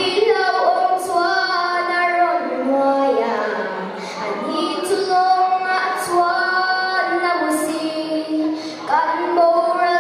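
A young girl singing solo into a handheld microphone, holding long notes and gliding between them.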